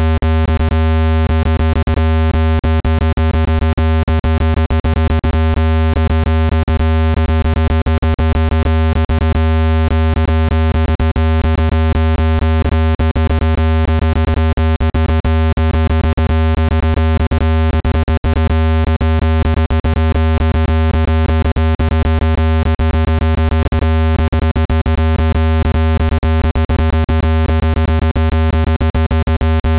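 Synthesized speaker-cleaning tone meant to vibrate dust out of a phone speaker's grille: a loud, steady low buzz with a stack of steady higher overtones. It is broken by frequent very brief dropouts.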